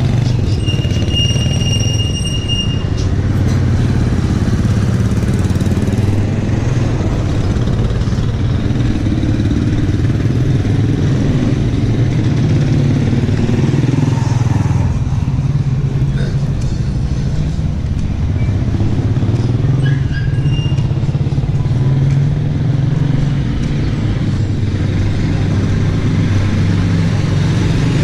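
Motor vehicle engine running steadily with road rumble, its pitch shifting a little as it moves. A brief high-pitched beep sounds about a second in.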